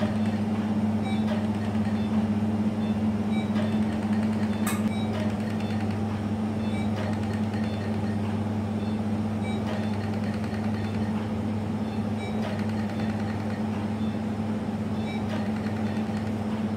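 Steady low electrical hum of operating-theatre equipment, with faint high blips at a regular pace over it and one short click about five seconds in.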